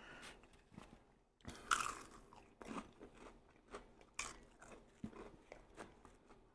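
A person chewing food with their mouth, with irregular crunches and bites. The food is from a meal of White Castle cheeseburger sliders, spicy chicken rings and seasoned fries.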